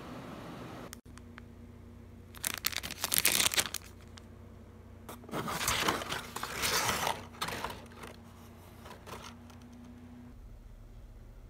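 Brown kraft packing paper crinkling and rustling in two loud bursts as a parcel is unpacked by hand. Before that comes about a second of steady air-conditioner blowing noise, which cuts off suddenly.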